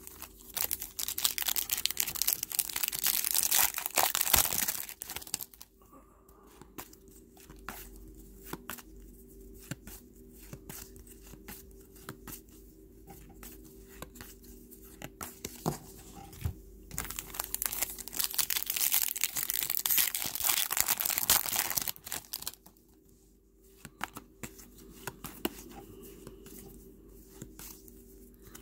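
Foil trading-card pack wrappers torn open and crinkled, in two loud stretches of about five seconds each, one near the start and one about two-thirds in. Between them come quieter scattered clicks of cards being handled.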